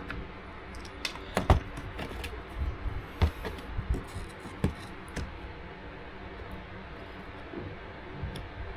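Scattered clicks and knocks as the stiff main PCB of a Machenike K600 keyboard is worked loose from its case. The clicks are densest in the first few seconds and thin out after about five seconds.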